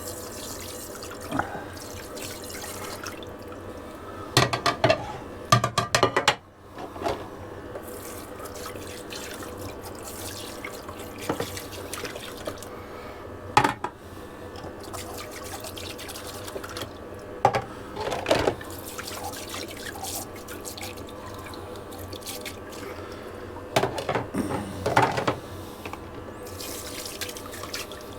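Water spraying steadily from a Tadamoe portable sprayer onto dishes being rinsed in a sink, with clunks and clatters now and then.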